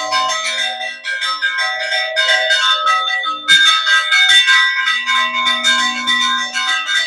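Church bells rung by hand in a rapid festive peal: several bells of different pitches struck a few times a second without pause, growing louder about halfway through. The ringing announces the start of the village fiesta.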